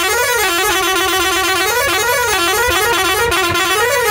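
A bus's musical horn sounding a warbling tune, its pitch rising and falling over and over, loud over the low rumble of the moving bus.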